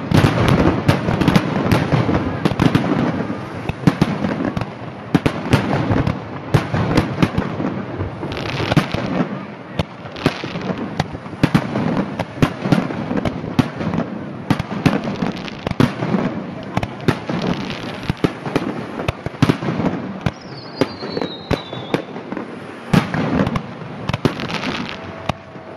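Aerial fireworks display: a rapid, unbroken stream of overlapping bangs and crackling shell bursts, with a brief falling whistle about twenty seconds in.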